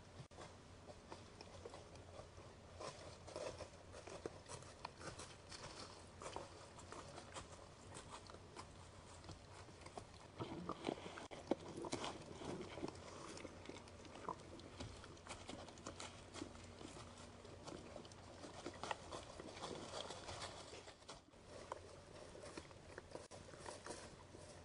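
A raccoon foraging close to the camera: faint, irregular crackling and crunching as it rummages in dry leaves and chews seed, busiest about halfway through.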